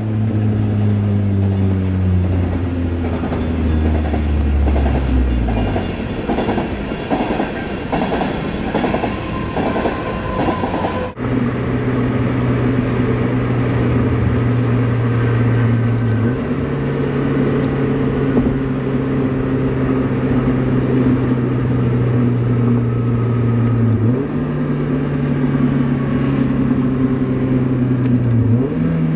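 Engine and exhaust of a 2000 Mazda Miata with an Enthuza XR axle-back (a Magnaflow straight-through muffler, and a straight pipe in place of the resonator), heard from inside the cabin. The engine note falls steadily for the first few seconds as the car slows. After an abrupt break it settles into a steady drone whose pitch jumps up three times, the first of these matching a rev-matched heel-toe downshift.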